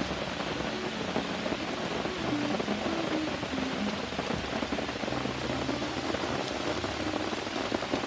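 Rain beating down on a camp tarp overhead: a steady, dense patter of drops.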